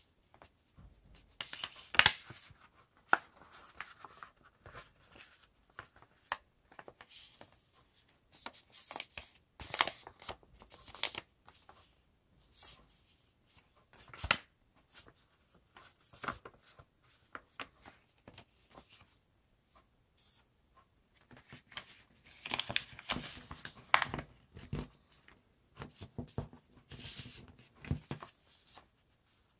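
Sheet of paper being folded and creased by hand: irregular crackling rustles and sharp strokes as folds are pressed flat, busiest in a cluster near the end.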